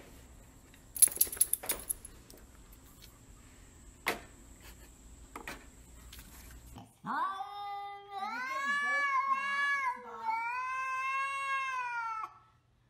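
Several sharp knocks in the first couple of seconds and a single knock about four seconds in, from a small dog's long wooden stick bumping the doorway. Then, from about seven seconds in, a cat yowls in long wails that rise and fall in pitch for about five seconds, a territorial yowl at another cat on the far side of a glass door.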